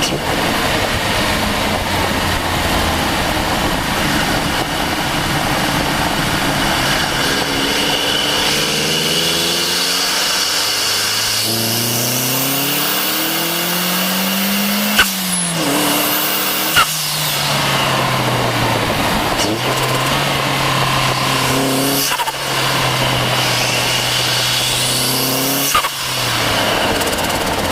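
Turbocharged Mazda MX-5 Miata engine, heard up close at the turbo, pulling hard with its pitch climbing while a high turbo spool whine rises above it. Sharp brief bursts break in as the throttle shuts, twice about halfway through and once more near the end, after the engine settles to a steadier note and climbs again.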